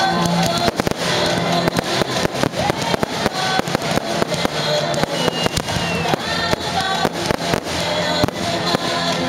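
Fireworks display firing a dense volley: many sharp bangs and crackles in quick succession, over music with held notes.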